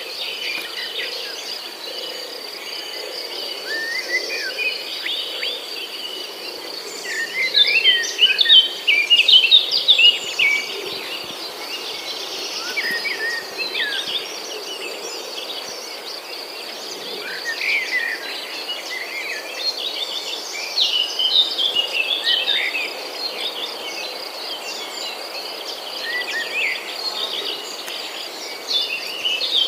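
Many small birds chirping and twittering in bursts, over a steady high pulsing trill of insects.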